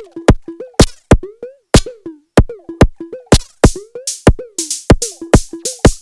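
Korg Volca Drum playing a fast, uneven electronic percussion pattern through a Bastl Kastle 2 FX Wizard: sharp clicky hits, each trailed by a short tone that bends in pitch, with bursts of hiss joining from about halfway.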